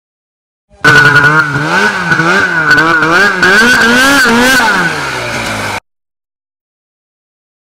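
Snowmobile engine revving up and down about twice a second as the sled works through deep powder, with a steady high whine over it. Near the end the revs drop to a steadier lower note and the sound cuts off abruptly.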